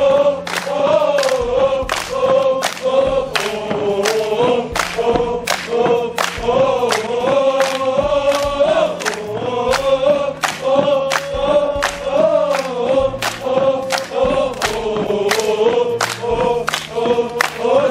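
A large group of military trainees singing a song together in unison, kept in time by sharp hand claps about twice a second.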